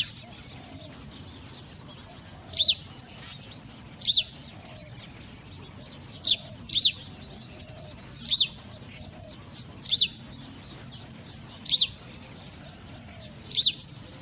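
A bird calling: one short, high, falling chirp repeated about every one and a half seconds, once as a quick double.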